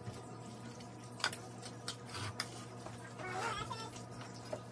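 A metal utensil spreading thick macaroni and cheese in a glass baking dish, with a few light clicks and taps of metal against the glass.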